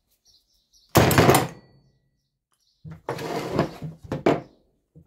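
Rubber mallet whacking a socket bar held on a chainsaw's clutch, trying to shock the tight clutch loose: one sharp hit about a second in, then a longer burst of noise around three seconds in that ends in another sharp knock.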